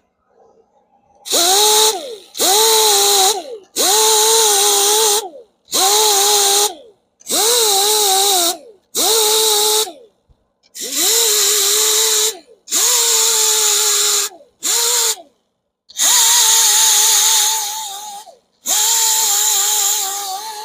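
Power grinder with a 60-grit sanding disc, worked against the alloy wheel's spokes to grind out curb rash. It runs in about eleven short bursts of a second or two, each spinning up to a steady whine over the grinding noise and winding down between passes; the last two bursts are longer.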